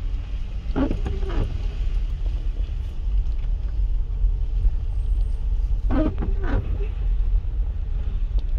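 Steady low rumble of a car's engine and road noise heard from inside the cabin on a wet road. Twice, about a second in and again near six seconds, come a pair of short squeaky strokes, like windscreen wiper blades sweeping across and back.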